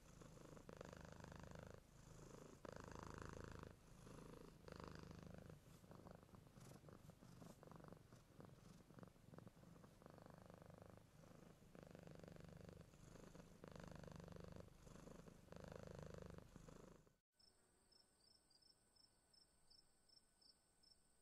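Domestic cat purring faintly in slow, even cycles, each swell about a second long with a short pause between. About 17 seconds in it cuts off, and crickets chirp over a steady high trill, about four chirps a second.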